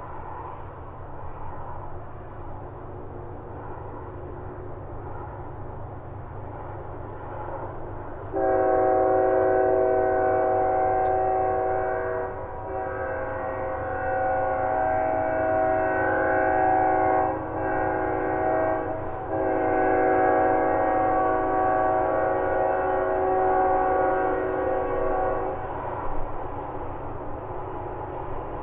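Locomotive air horn sounding the grade-crossing signal: two long blasts, a short one and a final long one, each a chord of several steady tones. Under it is a low, steady rumble.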